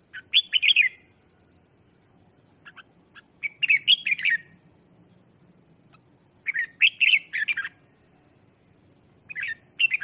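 Red-whiskered bulbul singing short, quick warbled phrases, four of them about three seconds apart. It is a decoy bird's song of the kind played to call in wild bulbuls.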